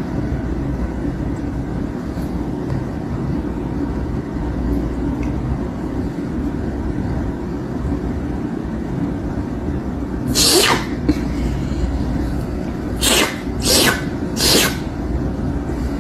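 A pet sneezing four times, once about ten seconds in and then three quick sneezes a few seconds later, over a steady low rumble.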